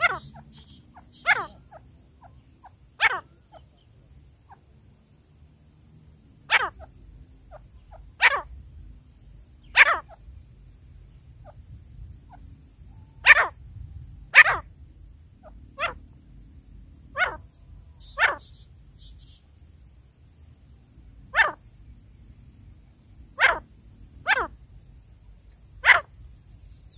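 Caged francolins giving short, sharp single calls, about fifteen of them spaced irregularly a second or two apart.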